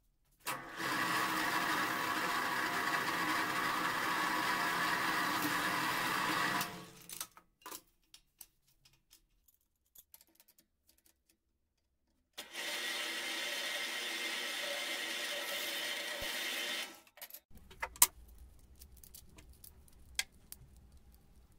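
Drill press running and drilling through a flat steel bar, in two steady runs of about six and four and a half seconds with a pause between. Afterwards come a few sharp clicks of small metal parts being handled.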